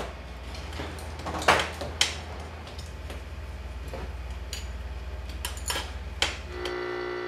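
Scattered light clicks and taps of brush-making hand work at a bench, as hair bundles and small tools are handled, over a low steady hum. A steadier electrical hum comes in near the end.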